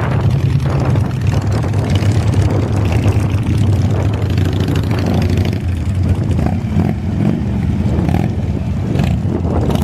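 A group of motorcycles rumbling at low speed as they pull in, their engines running steadily together.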